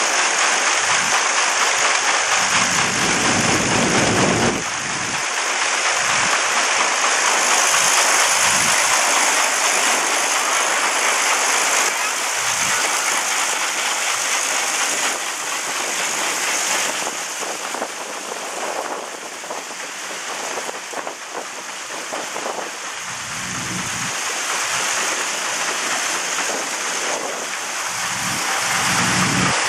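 Threshing machine running, a steady rushing hiss of grain and chaff, with threshed grain pouring from its spout into a wagon.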